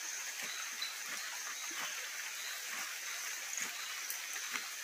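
Steady hiss of rain falling, with a few faint soft taps scattered through it.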